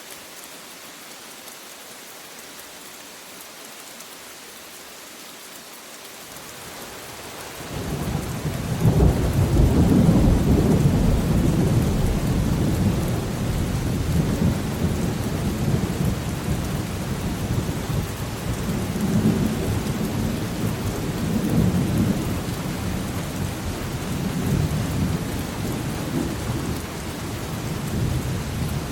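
Steady rain hiss, then about seven seconds in a long, deep roll of thunder builds suddenly and rumbles on, swelling again several times over the rain.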